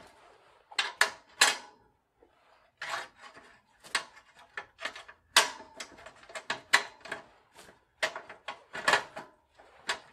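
Irregular metal clicks and clinks as a bicycle's rear wheel, its axle and coaster-brake hub, is worked by hand into the steel frame's dropouts. Some of the knocks ring briefly.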